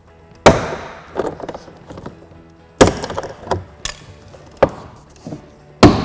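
Plastic retaining clips of a Volkswagen GTI's interior door panel popping loose as the panel is pried off the door: about six sharp snaps at uneven intervals.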